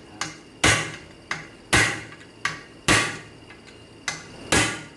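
Hammer blows on a Torx bit seated in a Loctite-locked transmission bolt: four hard metallic strikes about a second apart, each preceded by a lighter tap. The blows shock the threadlocker loose so the bolt can be unscrewed without breaking the bit.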